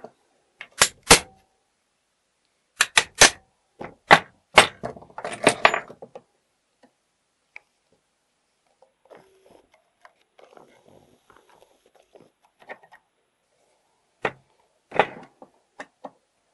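Sharp metal clicks and knocks from a screwdriver and tools handled against an old mortise door lock's steel case. They come in quick clusters over the first few seconds, with two more single knocks near the end and faint scraping between.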